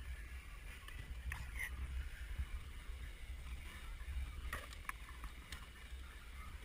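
Low steady rumble on the microphone, with a few faint clicks and light knocks of tools and parts being handled in a jet ski's engine bay.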